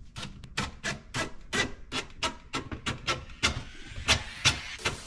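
DeWalt FlexVolt cordless drill driving a screw slowly through a dishwasher's side mounting bracket into the cabinet, giving a steady run of sharp clicks about four a second.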